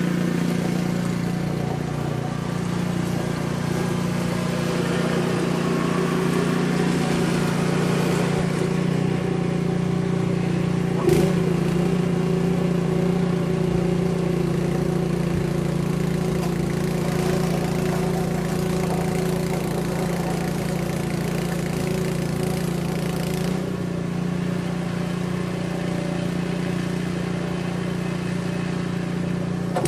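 An engine running steadily at a constant speed, with one brief knock about eleven seconds in.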